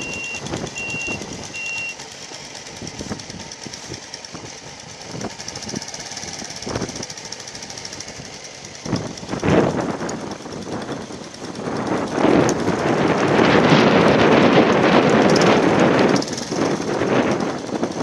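A vehicle's reversing beeper sounds at about two beeps a second and stops about two seconds in. After it comes a rushing noise with scattered knocks, loudest from about twelve to sixteen seconds in.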